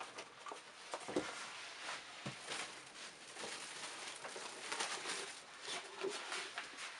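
Used shoes being handled and shifted on a tabletop: irregular rustling and scraping, with a few soft thuds about a second and two seconds in.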